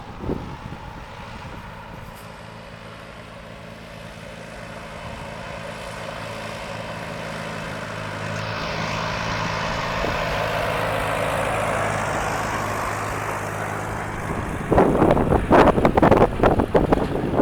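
Farm tractor engine running steadily, swelling louder through the middle as it passes. In the last few seconds, strong wind gusts buffet the microphone.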